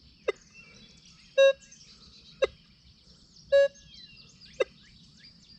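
Minelab Equinox 800 metal detector giving target signals as its coil is swept back and forth over a nickel that has a fridge magnet above it, about one beep per second. The beeps alternate between a longer, fuller tone and a short sharp blip. Birds chirp faintly in the background.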